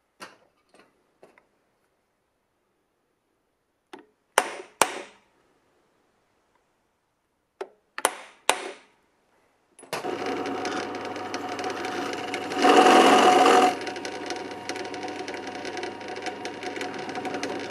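A few sharp clicks and knocks, then about ten seconds in a drill press starts and runs with a steady whine as its bit drills into a metal washer and screw head. The sound swells for about a second partway through.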